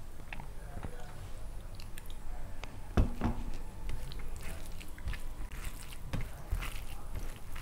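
Close-miked eating sounds: fingers squishing curry into rice on a steel plate, with soft chewing and mouth clicks. One sharper knock about three seconds in, as the glass curry bowl is set down.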